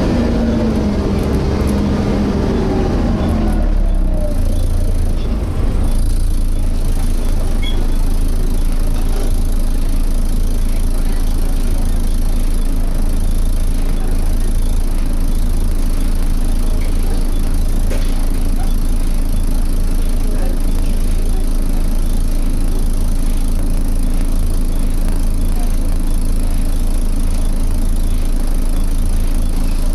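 Volvo B7TL double-decker bus heard from inside, its six-cylinder diesel engine and cooling fan running at a steady road speed, the fan adding a steady high, vacuum-cleaner-like 'hoover' whine. Over the first few seconds the engine note falls, then holds steady.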